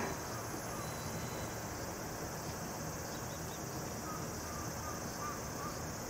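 Low steady rumble of stationary JR KiHa 110-series diesel railcars idling at a station, under a steady high hiss, with a few faint short chirps in the second half.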